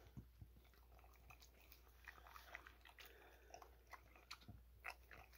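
Faint wet chewing and smacking of a puppy eating boneless raw chicken from a stainless steel bowl, as a series of short soft clicks.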